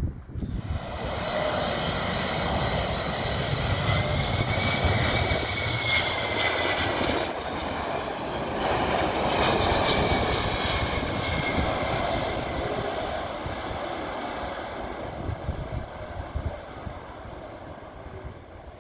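Boeing 767 twin jet engines on landing approach and touchdown: a steady jet roar with a high engine whine. It is loudest around the middle and fades toward the end.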